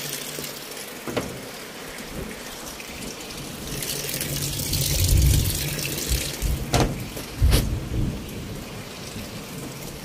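Water pouring and splashing into the tub of a top-load washing machine as it fills, a steady rushing splash. Deep rumbles swell about four to six seconds in and again near seven and a half seconds, with a few sharp knocks.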